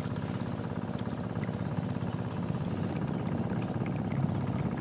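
A steady low engine drone with a fast, even flutter, with a faint thin high whine above it.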